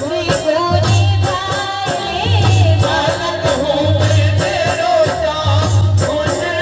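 A Hindi devotional bhajan (Khatu Shyam bhajan) sung live through a PA system by a female lead singer, with others joining at microphones. Under the singing runs amplified accompaniment with a low drum beat about every second and a half and quicker light percussion between.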